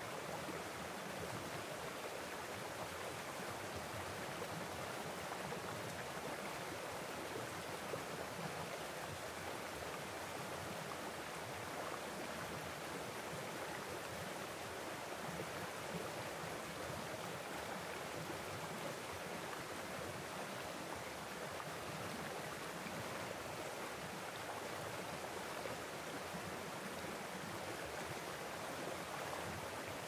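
Mountain stream rushing steadily over granite boulders, spilling through a small cascade.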